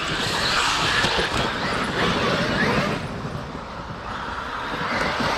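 Traxxas electric RC monster truck driving off-road: the brushless motor whines up and down with the throttle over a steady rushing noise from the tyres on the ground.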